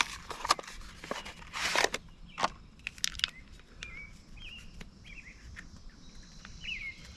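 Plastic packaging crinkling and rustling as slices of Canadian bacon are peeled out and laid on a sandwich, most of it in the first three seconds. After that, a bird chirps several times in short calls.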